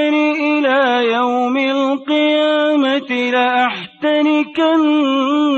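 Male Quran reciter chanting in melodic tajweed style: long held notes with ornamented turns in pitch, broken by short pauses for breath about two, three and four seconds in.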